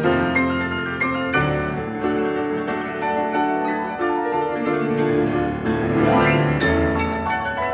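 Steinway & Sons grand piano played solo in a classical piece: dense chords and running notes, with a quick upward run about six seconds in.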